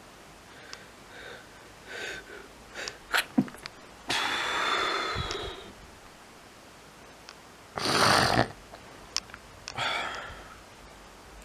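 Repeated sneezing with short catching breaths between: a long loud sneeze about four seconds in, a sharper and louder one about eight seconds in, and a smaller one near ten seconds.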